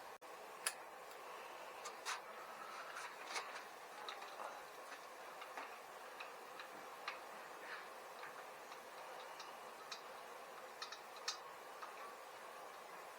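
Scattered light clicks and taps of small parts being handled while a throttle assembly is fitted to a motorized-bike carburetor, at irregular intervals over a faint steady hiss.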